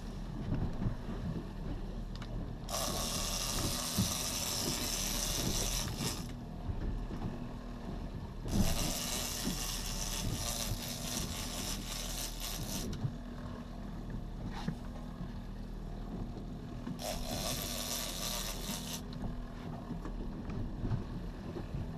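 Heavy big-game fishing reel whirring in three bursts of a few seconds each, the sound of line moving through the reel while a large wahoo is fought on it. Under it, a boat's engine idles with a steady low hum.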